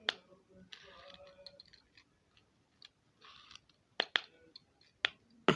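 A plastic dimple fidget spinner being handled, giving a handful of sharp, light clicks at uneven intervals, the loudest about four and five seconds in, with a couple of brief soft rustles.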